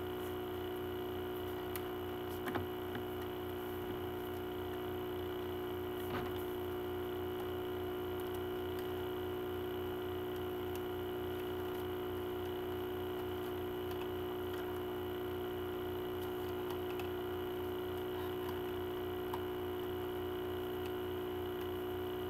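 Steady electrical hum made of several fixed tones, with a few faint clicks from a plastic CD case being handled, about two and a half and six seconds in.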